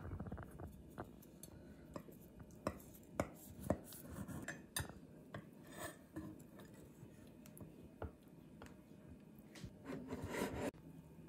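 Metal pie server cutting through baked pastry crust and scraping in a glass pie dish, with scattered light clinks and knocks of dish and plates. A longer scraping rustle near the end cuts off suddenly.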